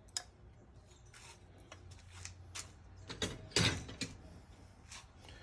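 Parts of a 1965 Volvo 122S windscreen wiper assembly being handled and taken apart: scattered metal clicks and clacks, with a louder cluster of knocks about three and a half seconds in.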